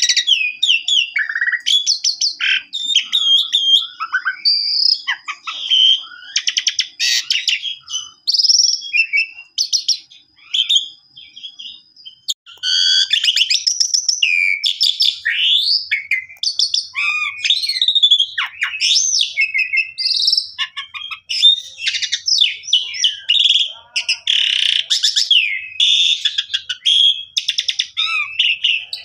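Asian pied starling singing a long, varied song: fast chattering notes and clicks mixed with rising and falling whistles, and a long-held high whistle running under the first half.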